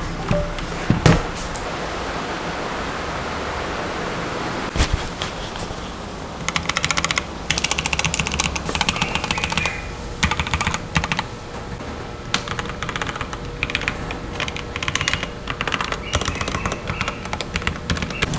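Typing on a Goojodoq budget mechanical keyboard: fast runs of key clicks from about six seconds in. Before that, a few seconds of steady hiss and a single knock.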